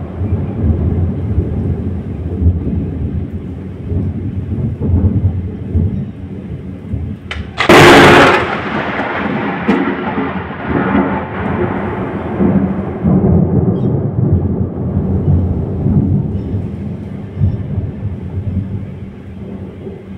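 Thunderstorm: thunder rumbling on and off, with a sharp, loud thunderclap about eight seconds in that trails off into a long rumble.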